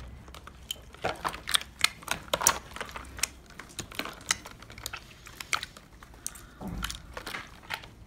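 Clear borax-free slime, stiffened by the cold, being squeezed and kneaded by hand among ice cubes in a plastic basin: irregular sharp clicks and crackles from the slime and ice, several a second.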